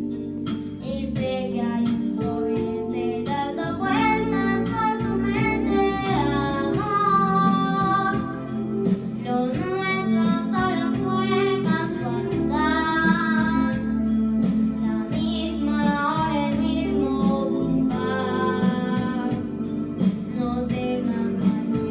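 A young girl singing a Spanish-language ballad, with guitar accompaniment.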